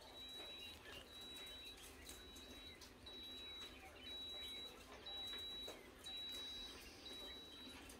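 A faint, high-pitched beep of one steady pitch, repeating about once a second. Each beep lasts just under a second, with a short gap between beeps.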